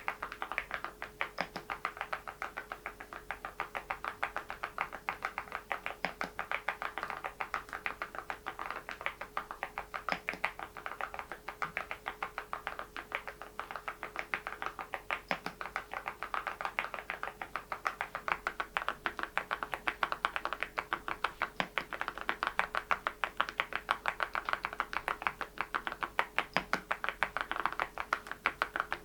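Steady, fast typing on an Adelie mechanical keyboard fitted with Cerakey ceramic keycaps: a dense run of sharp clacks, several keystrokes a second.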